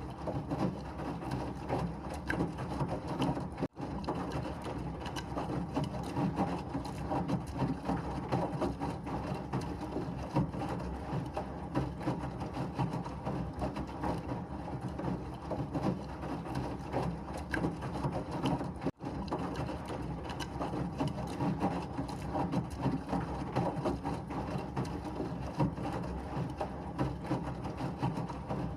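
Washing machine running, a steady churning noise with a fine mechanical rattle. The sound cuts out for an instant twice, about four seconds in and again about nineteen seconds in.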